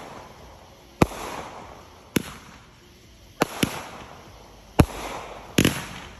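Aerial fireworks firing in succession: about seven sharp bangs, roughly one a second and sometimes two close together. Each bang is followed by a brief crackling tail as the shots launch and burst.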